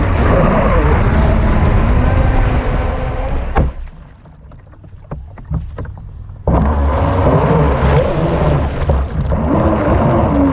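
Onboard sound of a radio-controlled speedboat under way: water and wind rushing past the hull, with a motor whine that wavers in pitch. A little over a third of the way in it drops suddenly to quiet water lapping and a few splashes for about three seconds, then the running noise comes back abruptly.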